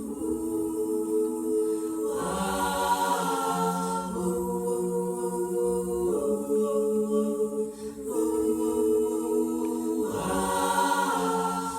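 All-female a cappella group singing held chords without words, the chord changing about every two seconds. Higher voices join over the harmony twice, about two seconds in and again near the end.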